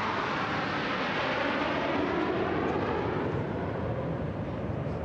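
Military jet aircraft flying past overhead: a steady rushing jet-engine noise that eases slightly near the end.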